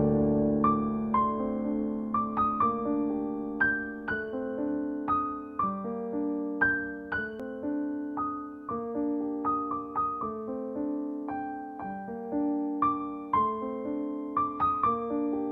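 Piano music: a melody of single struck notes, roughly one every half second, over sustained lower chords.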